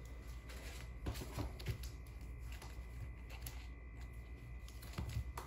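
Faint rustling and a few light clicks of bagged-and-boarded comic books being handled, over a low steady hum.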